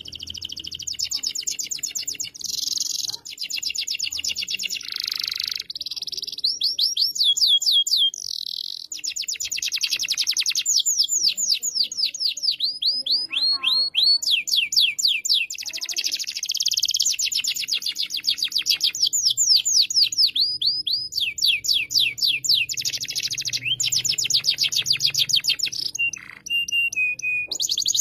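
Domestic canary singing a long, unbroken song of rapid trills. Fast runs of repeated high notes, each sweeping downward, switch to a new trill every second or two.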